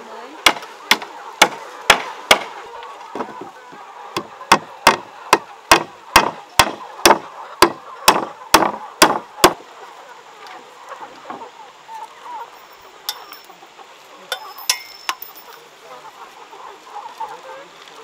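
Claw hammer driving nails into wooden roof boards: a fast run of sharp blows, about two a second with a short break near three seconds, stopping after about nine seconds, followed by a few scattered lighter knocks. Chickens cluck faintly throughout.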